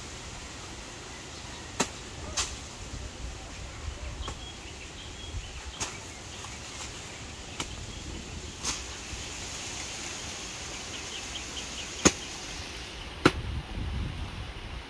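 A bolo knife chopping at a banana plant's base and the dry debris around it: a series of sharp single strikes a second or more apart, the last two loudest.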